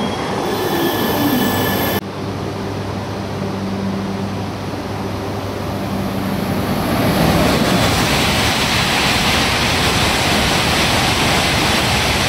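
A steady low hum, then from about six seconds in a building rush of air and rail noise as an E5 series Shinkansen (Hayabusa coupled with an E6 Komachi) passes the platform at speed on the through track without stopping. The rush stays loud to the end.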